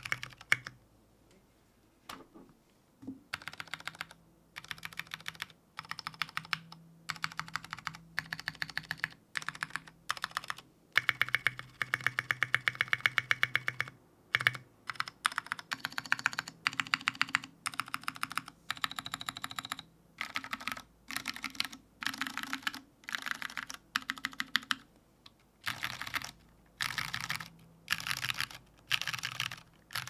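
Fast typing on a mechanical keyboard with lubed Cherry Ergo Clear tactile switches, a stainless steel plate and SA keycaps. The keystrokes come in quick runs, word by word, with short gaps between them, and there is a longer pause about a second in.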